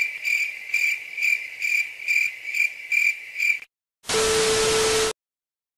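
Crickets chirping steadily, about two chirps a second, used as a sound effect. It cuts off, and after a short gap there is about a second of loud TV static with a steady low hum: a glitch sound effect.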